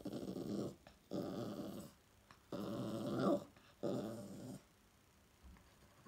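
English Toy Terrier grumbling and growling in four long low growls, about a second apart, the third rising in pitch at its end.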